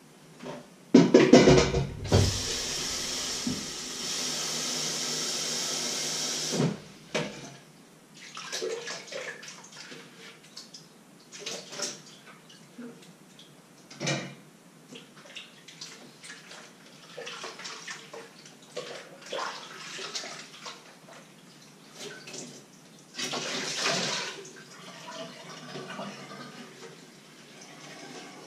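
Water pouring steadily for about five seconds, stopping suddenly, then scattered clinks and knocks of kitchen pots and utensils being handled.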